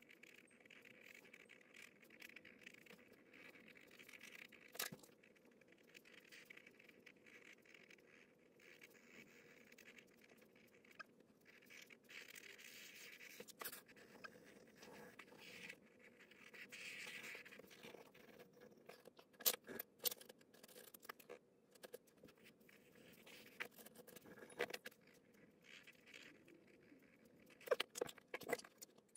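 Pen and pencil scratching faintly on drawing paper in quick strokes while a portrait is inked and shaded with graphite. A few sharp clicks and taps stand out, clustered about two-thirds of the way through and again near the end.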